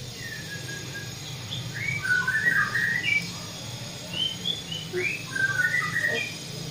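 A bird chirping and twittering in short high notes that glide up and down, in two bouts, over a steady low hum.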